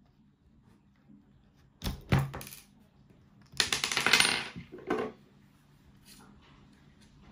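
Metal clicks about two seconds in, then a small metal washer from an RC car's wheel axle clatters onto a wooden table and spins with a ringing, coin-like rattle for about a second, followed by one more clink.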